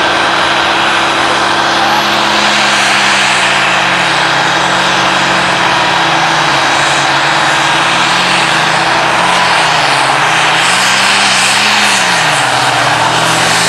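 Modified diesel pulling tractor running flat out under load as it drags a weight-transfer sled. The engine runs loud and continuous, its pitch rising and falling several times through the pull.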